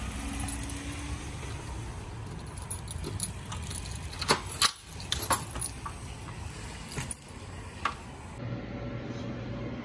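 Keys jangling and a door lock clicking as a glass shop door is unlocked and opened: a run of sharp metallic clicks in the middle, a couple more later, over a steady low background hum.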